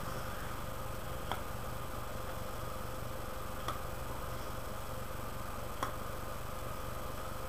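Steady electrical hum and hiss with a faint sharp click about every two seconds, three times in all.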